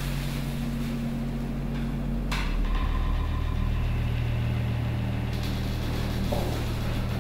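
A steady low mechanical hum, like an idling engine, that changes pitch about two and a half seconds in, with a brief sharp clatter just before the change.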